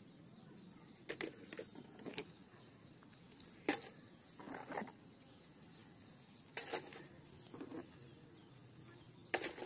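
Faint, scattered clicks and knocks of mud-coated plastic toy vehicles being picked up, handled and set down on a board, a second or two apart.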